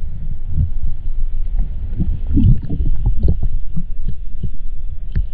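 Muffled, irregular low thumps and rumbling of water, as picked up by a camera held underwater in its waterproof housing.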